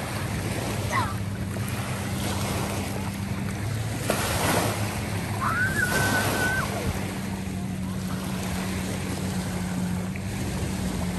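Wind rushing over the microphone, louder about four to seven seconds in, over a steady low hum that breaks off for about a second partway through. A short high whistle-like note rises and then holds about six seconds in.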